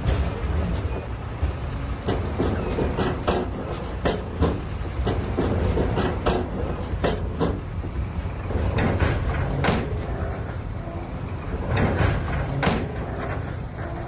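Heavy earthmoving machine's diesel engine running with a steady low rumble, with frequent sharp clanks and knocks over it.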